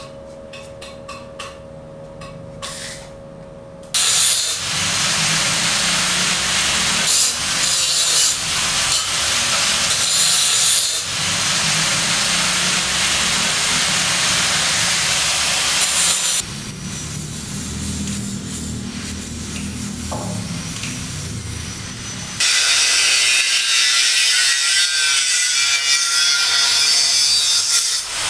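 Construction tool noise: a loud, rasping cutting sound in several abruptly cut segments, after a few seconds of light clinks and knocks.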